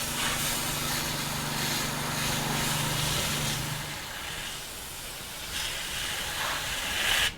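Water spraying steadily from a hose onto a mounted staghorn fern and its sphagnum moss, a continuous hiss, with a low hum underneath that fades about halfway through.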